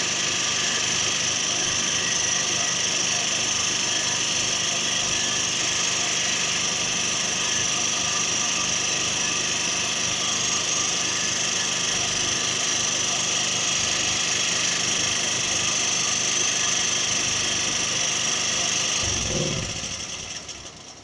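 Small petrol generator engine running steadily, then shutting off about nineteen seconds in and winding down to a stop as its two-minute remote timer cuts it off.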